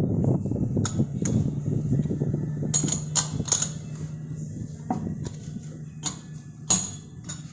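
Metal lathe running with a steady low hum that fades away over the last few seconds, while about nine sharp clicks or taps sound at uneven intervals.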